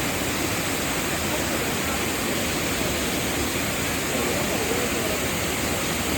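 Waterfall: a steady rushing of falling water.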